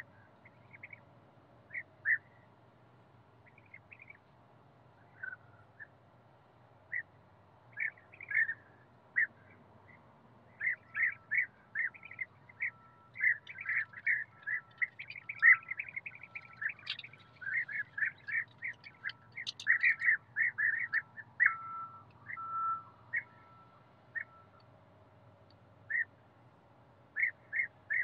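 European bee-eaters calling: short rolling notes, a few scattered at first, then a dense run of overlapping calls through the middle, thinning out again near the end.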